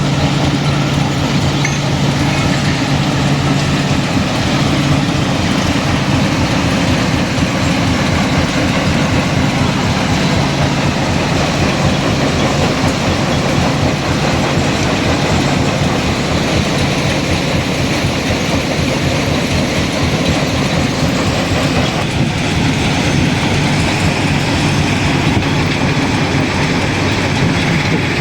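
Stone crushing plant running: a steady engine drone under continuous dense rattling and clatter.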